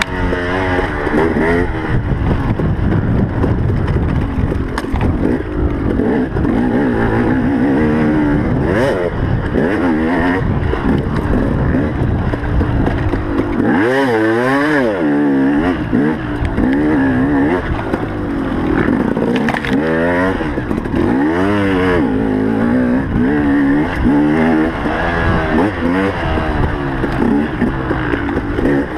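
Motocross motorcycle engine racing under hard throttle, its pitch repeatedly climbing and dropping as it revs out, shifts and backs off.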